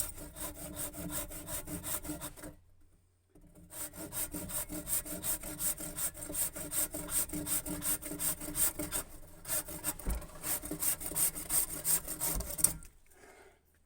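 Stanley Jet Cut handsaw cutting through freshly cut wood in quick, even back-and-forth strokes. The sawing stops briefly a few seconds in, then resumes and stops near the end.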